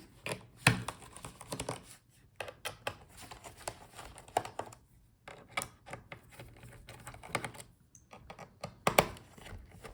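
Screwdriver working the bottom-case screws out of an HP EliteBook 840 G9 laptop: irregular small clicks and taps of metal on screw and plastic case.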